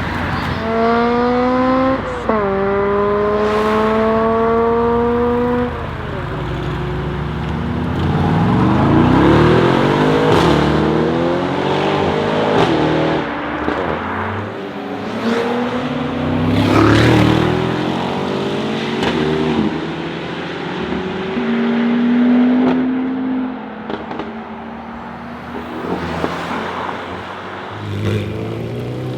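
Mercedes-AMG G63's twin-turbo V8 through an Akrapovič exhaust accelerating hard. Its pitch climbs, drops at an upshift about two seconds in, then climbs again. After that come more rising and falling engine revs with a few sharp cracks.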